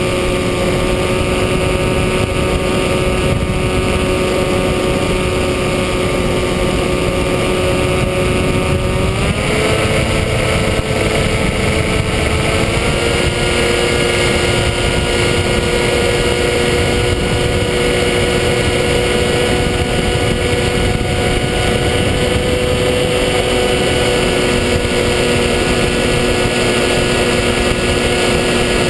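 Electric motor and propeller of a HobbyKing EPP-FPV radio-controlled plane whining steadily in flight, heard from the onboard camera with air rushing over it. The whine steps up in pitch about nine seconds in and again a few seconds later as the throttle is opened.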